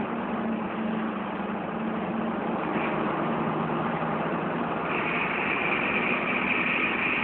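A vehicle driving along a road: a steady engine hum under road and wind noise, with a higher hiss joining about five seconds in.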